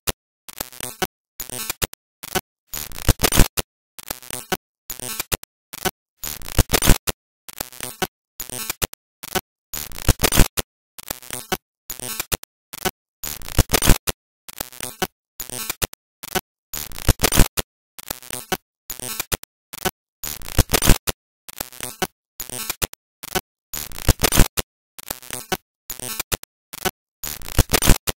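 Harsh bursts of crackling, static-like noise broken by gaps of dead silence, in a stuttering pattern that repeats about every three and a half seconds.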